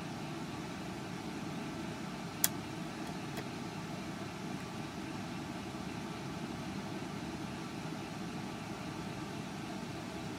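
Steady low mechanical hum of running equipment, with one sharp click about two and a half seconds in and two faint ticks just after.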